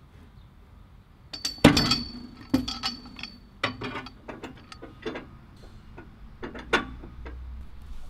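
Metal clanks and clicks from a Timbery M120 sawmill's cam-action log clamp and log-bed hardware being set against a log. The strikes come irregularly, the loudest about a second and a half in, and the sharpest ones ring briefly.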